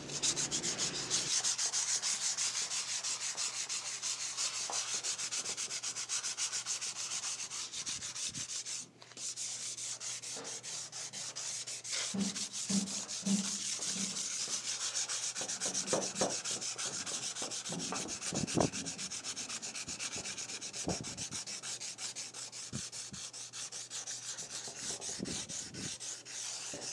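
Sandpaper rubbed by hand over a rusty sheet-steel panel from a computer case, a steady gritty hiss of repeated strokes as the rust and corrosion are sanded off. There is a short pause about nine seconds in.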